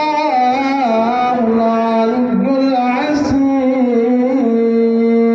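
A man's voice chanting in a long-drawn melodic style, the pitch sliding and ornamented between notes, then settling on one long held note near the end.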